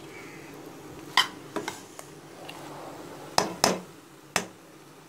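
A spoon stirring chicken, onions and tomatoes in an aluminium pot as they sauté, the spoon clinking sharply against the pot about six times.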